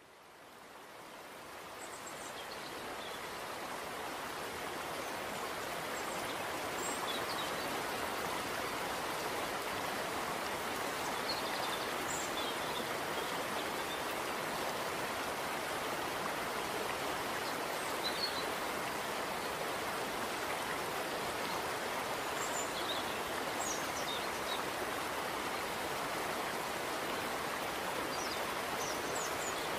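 Steady rushing of flowing water, like a stream, fading in over the first few seconds and then holding, with a few faint short high chirps scattered through it.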